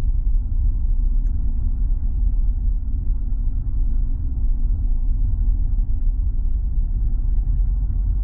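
Steady low rumble of a 4x4 driving slowly along a snow-covered road, heard from inside the cabin: engine and tyre noise.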